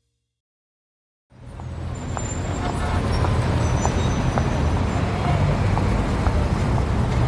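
Silence for about a second, then a steady low rumbling noise fades in over a couple of seconds, with faint brief tones and ticks scattered over it.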